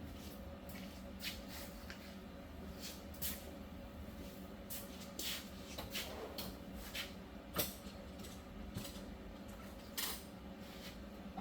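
Scattered clicks and light metal clinks of hand tools being handled and sorted, over a steady low hum.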